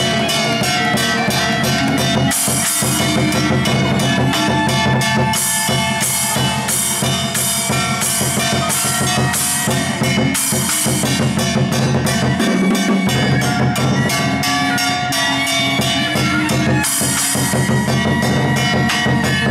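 A set of painted barrel drums played fast with wooden sticks in a dense, driving rhythm. A cymbal crashes four times, and other instruments hold sustained notes underneath.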